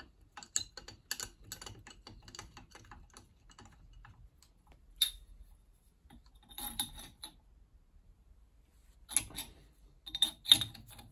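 Metal tools clicking and clinking against a steel gear puller as a tommy bar and an adjustable spanner are fitted to its forcing screw, to draw the pulley off a washing-machine motor. A run of light clicks gives way to sharper clinks a few times, the loudest near the end.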